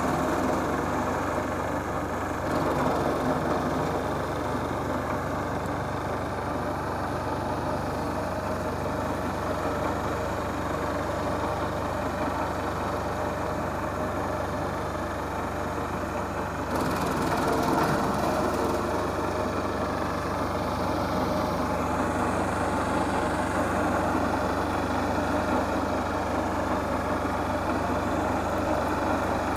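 Wood chipper running steadily. A little past halfway there is a louder, harsher stretch of about two seconds.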